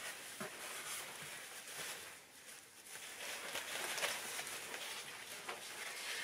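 Soft rustling and crinkling of packing material handled by hand while a shipped plant is unwrapped, with a few light clicks and a short lull a little past two seconds in.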